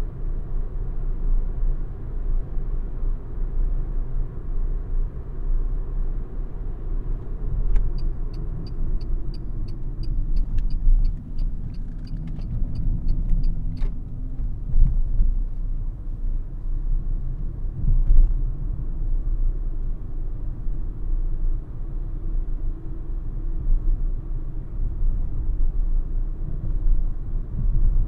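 Inside the cabin of a Renault ZOE R110 Phase 1 electric car driving in city traffic: a steady low rumble of tyres and road, with no engine note. About a third of the way in, a regular high ticking runs for roughly six seconds, about three ticks a second.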